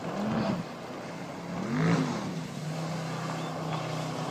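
Motorboat engine running with a steady hum, revving up and back down twice: briefly near the start and more strongly about two seconds in.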